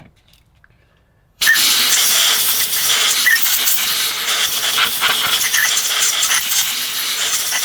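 Steady, loud hiss of a pressurised jet, either spray or compressed air, blasting dirt out of a strimmer carburettor part. It starts abruptly about a second and a half in and keeps going without a break.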